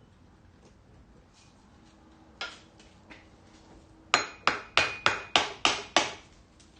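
Hammer blows on the Fiat 500 engine to free its cylinder head: a single knock, then a quick run of seven sharp metallic strikes about three a second, with a faint ring.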